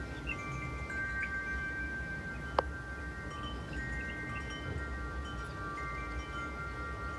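Wind chimes ringing: several long tones overlapping and sounding together, new ones struck now and then, with one sharp click about two and a half seconds in.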